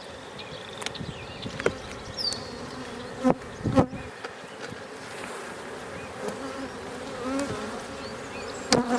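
Honey bees buzzing steadily over an opened hive with a slightly wavering hum, broken by a few sharp clicks and knocks, the loudest about four seconds in.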